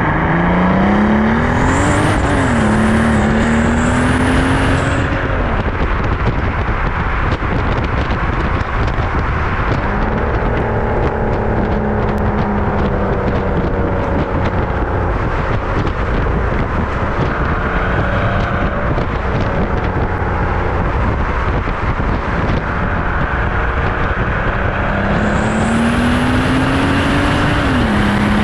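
Renntech-tuned 2006 Mercedes-Benz S65 AMG's twin-turbo V12 through its stock exhaust, heard at the tailpipes while driving. It makes a full-throttle pull, its note rising with a gear change about two seconds in and a high whistle over the top. Then comes lighter running under road and wind rush, and another hard pull near the end with a shift just before it ends.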